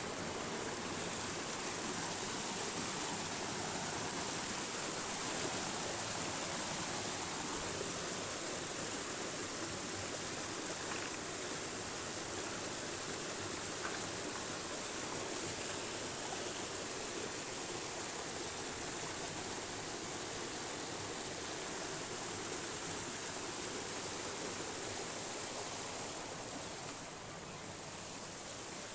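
Mountain stream rushing steadily over boulders, a continuous rush of water that drops slightly near the end.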